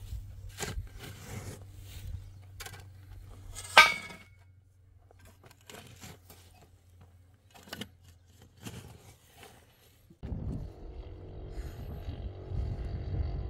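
Scraping and knocking handling sounds, with one loud, ringing metallic clank about four seconds in. At about ten seconds a steady motor hum with a low rumble starts abruptly.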